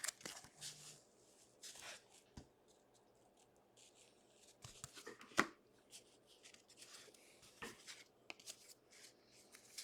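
Basketball trading cards being handled and flipped through: faint, scattered clicks and rustles of card stock, with one sharper tap about five and a half seconds in.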